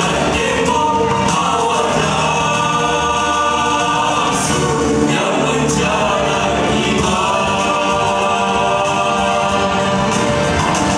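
A nasyid vocal group singing in harmony, several voices together.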